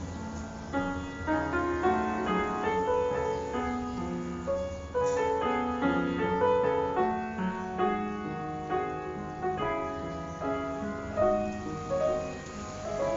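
Background piano music: a stream of short melodic notes over sustained lower notes.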